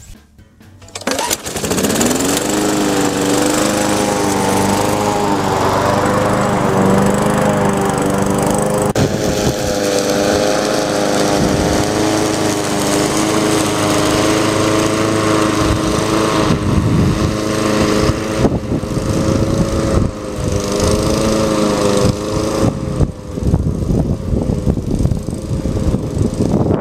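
Walk-behind lawnmower's small engine, running on E85 with about a third of the carburetor's air holes covered by duct tape to lean the air-fuel ratio for alcohol. It starts up about a second and a half in, rising in pitch as it comes up to speed, then runs steadily with a slightly wavering pitch. Near the end it grows fainter and rougher as the mower moves away.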